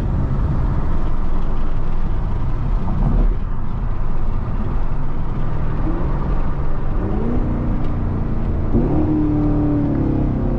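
Chevrolet Camaro 2SS's V8 engine running under way, with a steady low drone and road rumble; the engine note rises a few times in the later seconds.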